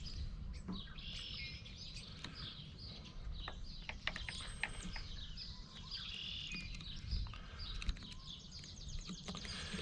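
Small birds chirping and twittering steadily in the background, with scattered light clicks and taps over a low steady hum.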